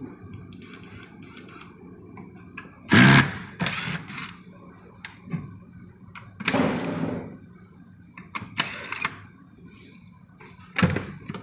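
Corded electric screwdriver running in short bursts on the screws of a plastic pet-feeder lid, amid clatter of the plastic parts being handled; the loudest clatter comes about three seconds in. A faint steady hum runs underneath.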